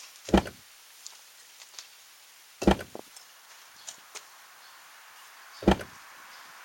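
Three heavy thuds about two and a half to three seconds apart, with small knocks and clicks between them: concrete blocks being set down one by one to lay out a fire pit.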